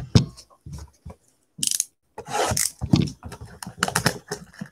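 Cardboard trading-card box being handled and tipped over on a table: a few knocks at first, then a brief rustle and a dense run of clicks and crackling from about halfway through.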